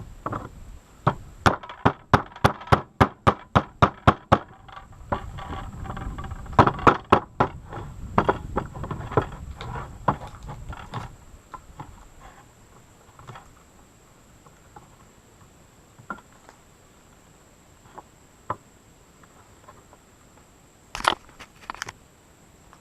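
A quick run of sharp clicks and knocks, about three a second, for a few seconds, then a denser cluster. After that come scattered single knocks, with a short double knock near the end.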